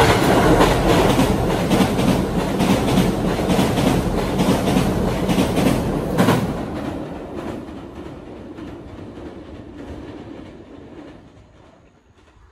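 An electric commuter train crossing a steel girder railway bridge overhead: a loud, rattling run of rapid clacks as the wheels strike the rail joints on the bridge. It eases off after about six seconds and fades away.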